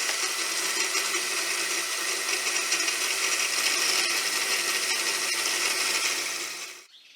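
Milling machine cutter cutting across a steel workpiece, a steady loud cutting and motor noise that stops suddenly near the end.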